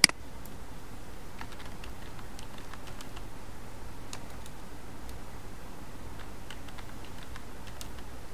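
Computer keyboard typing: keys tapped irregularly as a word is typed and corrected, with one sharp, louder click right at the start.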